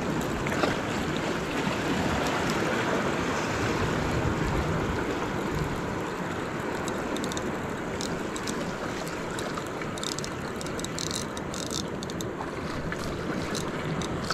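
Steady wash of sea surf against the rocks, with light wind on the microphone. Scattered short clicks come through over it in the second half.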